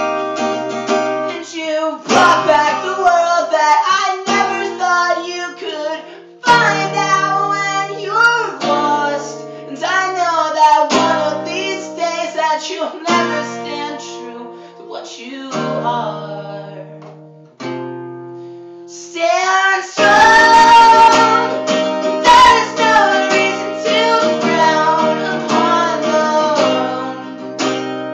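Steel-string acoustic guitar playing a song, with a voice singing over it at times. The playing drops away briefly, then comes back at its loudest about twenty seconds in.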